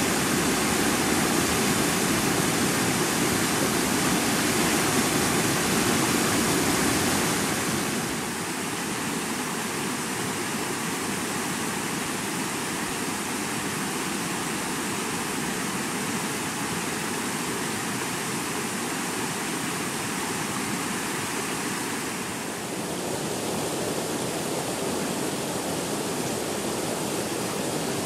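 Flash-flood torrent of muddy water rushing over rocks: a steady rush of water, loudest for the first eight seconds, then dropping abruptly to a lower, even level, with a further slight change in tone about three quarters of the way through.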